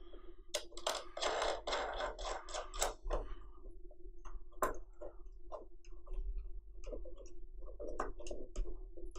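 Small metal parts clicking and rattling as a washer and nut are fitted by hand onto a threaded rod: a quick run of clicks in the first few seconds, then scattered single clicks.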